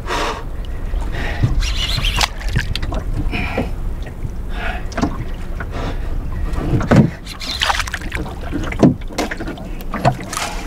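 Wind buffeting the microphone over a low steady rumble, with irregular slaps of water against a small wooden boat's hull every second or so.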